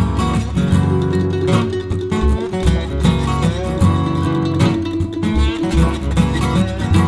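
Background music led by acoustic guitar, plucked and strummed over a steady bass.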